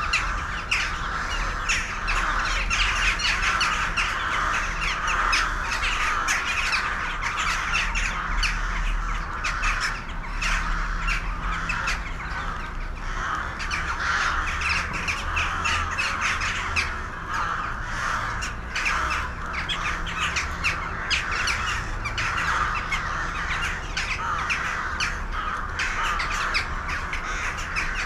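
A large flock of birds calling all at once, a dense, unbroken chatter of many overlapping short calls.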